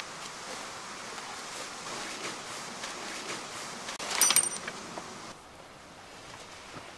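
Fabric of a roof-rack shower privacy tent rustling as it is unrolled and let down from its bag, with a short metallic jingling clatter about four seconds in, the loudest sound.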